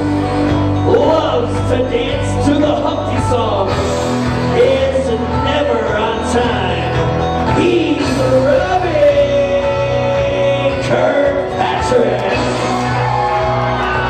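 Loud song with a singer and a steady bass line, played by the DJ over the sound system.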